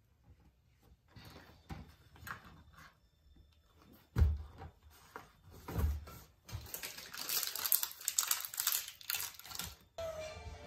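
Shopping being unpacked onto a kitchen countertop: a plastic tub and a cardboard box set down with two knocks, the first the loudest, then about three seconds of rustling and crinkling from the bag and packaging.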